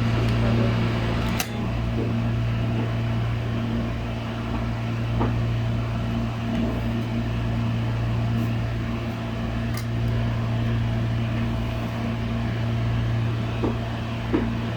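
Steady low mechanical hum with an even background hiss, broken by a few faint, light clicks.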